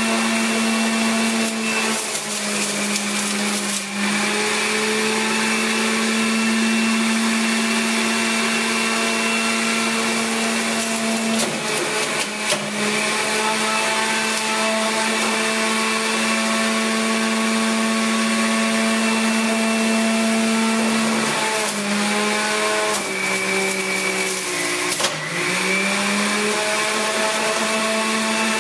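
Hamilton Beach centrifugal juice extractor running with a steady motor whine while vegetables are pressed down its feed chute. Twice the pitch sags for a second or two as the produce loads the motor, then climbs back.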